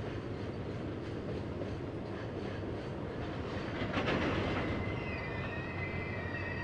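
A freight train of container flatcars rolls past with a steady rumble and wheels clicking over the rail joints, with a louder clatter about four seconds in. From about five seconds, a high, steady wheel squeal sets in.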